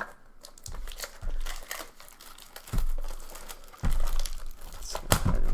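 Plastic wrap being crinkled and torn off a blaster box of baseball cards by hand, with irregular crackles and a few dull thumps as the box is handled.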